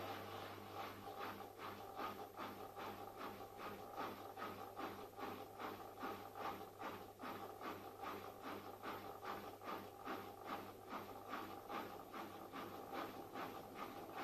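Miele WKB130WCS washing machine running, with a vibration noise that pulses about three times a second over a steady low hum. The uploader traces the noise to the detergent drawer vibrating on weak plastic connectors.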